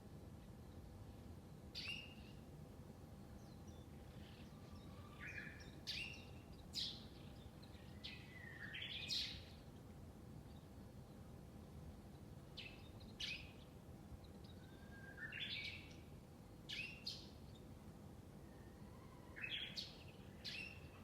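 Wild birds calling outdoors: short, sharp chirps and sweeping calls, one every second or two, over a faint steady background hum.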